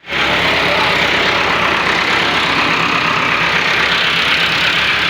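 A motor vehicle's engine idling steadily, a constant low running sound under even background noise.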